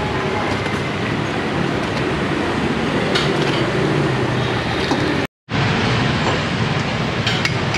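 Steady rumbling noise at a hủ tiếu stall's cooking station, where noodles are stirred in a steaming pot of boiling water, with a few light clinks of utensils. The sound cuts out for a moment about five seconds in.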